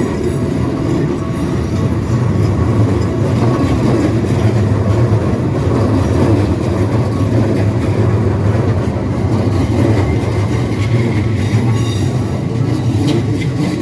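Keikyu electric commuter train passing over a level crossing: steady noise of wheels on the track.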